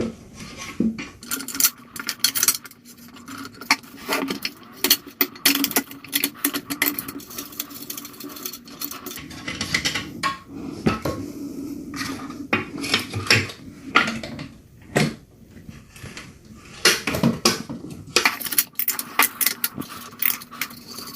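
An 18mm open-end steel wrench working the front axle nuts of a Xiaomi M365 electric scooter loose: many irregular metallic clicks and clinks.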